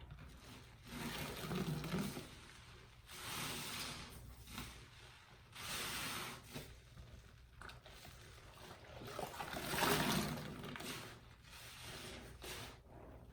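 A soaked sponge being squeezed over and over, giving about five wet squelching swells, each with water pouring out of it.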